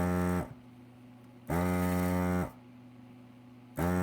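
Electric desoldering tool's vacuum pump buzzing in three short bursts as it is switched on and off, each starting with a brief rise in pitch, drawing molten solder off circuit-board joints.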